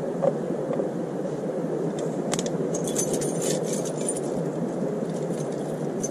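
A bunch of keys jingling and small metal clinks of bike locks being fitted to an e-bike's wheel, busiest in the middle, over a steady low rushing noise.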